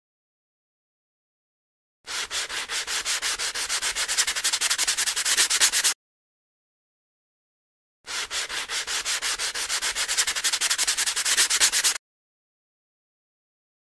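Two runs of quick back-and-forth sanding strokes, about five a second, each lasting about four seconds with a two-second pause between and slowly getting louder: hand sanding or abrading in knife-making.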